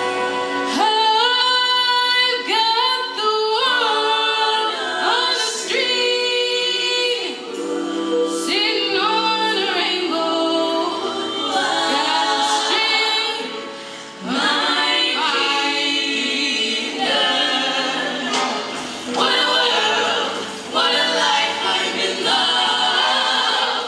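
Mixed show choir singing in parts, with musical accompaniment.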